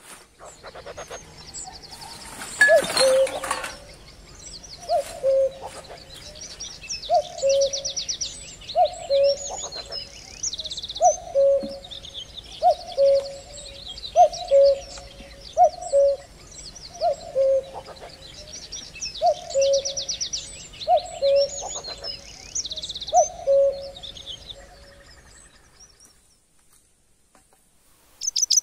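Birds calling outdoors: a low two-note call repeats about every two seconds while small birds chirp and trill higher up. There is a brief rustling noise about three seconds in, and the calls fade out near the end.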